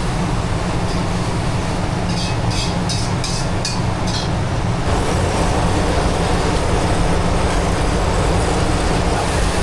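Steady loud mechanical hum and rushing noise, with a few light high clicks about two to four seconds in; the noise grows a little louder about five seconds in.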